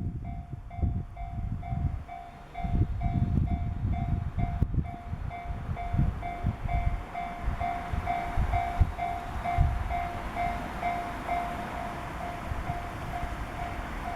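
Level-crossing alarm ringing steadily at about two rings a second while a Joban Line train passes, its rushing noise swelling about halfway through. Strong wind buffets the microphone with low, irregular gusts.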